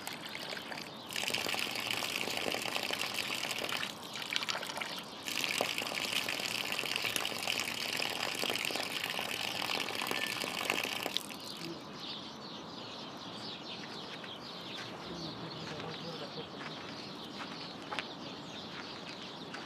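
Water running from a tap and splashing onto the ground, a steady hiss. It stops briefly about four seconds in, then shuts off about eleven seconds in, leaving a quiet background.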